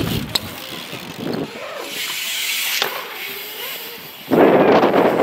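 BMX riding on a concrete skatepark: quiet rolling with a couple of sharp clicks. About four seconds in, a sudden loud, rough rushing noise of wind buffeting the microphone takes over.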